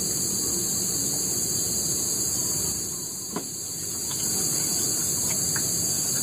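Steady, high-pitched chorus of forest insects, with a steady low rushing noise underneath and a single faint click about three seconds in.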